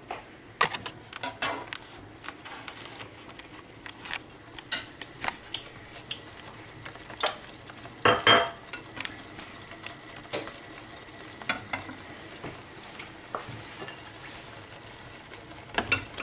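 A utensil stirring food that sizzles in a frying pan, with scattered clicks and knocks of metal on the pan over a steady sizzle. A louder clatter comes about eight seconds in.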